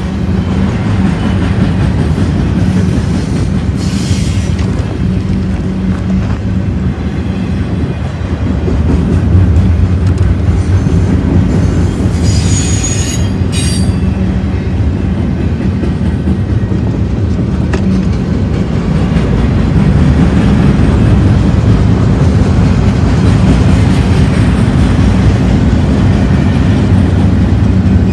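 Double-stack container train's well cars rolling past, a loud steady rumble of steel wheels on rail. A brief high squeal from the wheels cuts in about halfway through.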